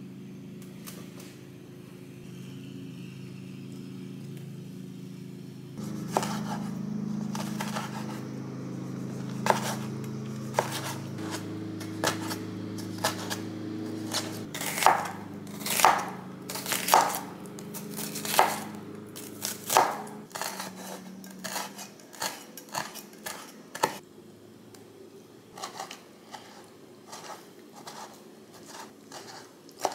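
Broad kitchen knife chopping green chili peppers and then a tomato on a wooden cutting board: an uneven run of sharp knocks that starts about six seconds in and is loudest near the middle.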